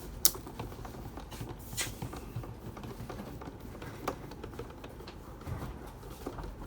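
Scattered light clicks and taps of a screwdriver and screws on the plastic case of a Birch thermal receipt printer as screws are taken out of its underside, with one sharp click about a quarter of a second in.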